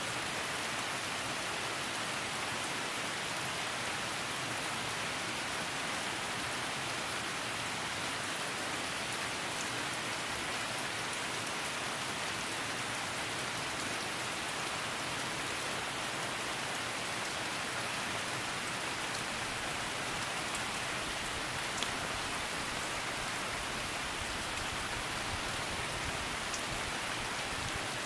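Steady rain: an even, continuous hiss with faint drip ticks scattered through it, one a little louder about two-thirds of the way in.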